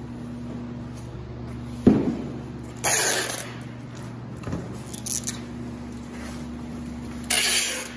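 Packing tape being pulled off a handheld tape gun against plastic-wrapped glass: a thump about two seconds in, then two short, loud ripping screeches of tape unrolling, about four seconds apart.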